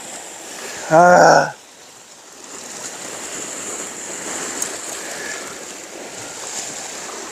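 Sea waves washing against a rocky shore: a steady rushing that swells about halfway through and then eases a little.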